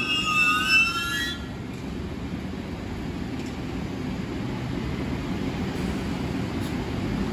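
Metro-North Hudson Line train with its wheels squealing against the rails in a high, wavering tone that stops about a second in. After that only a steady low rumble of the train rolling along the track remains.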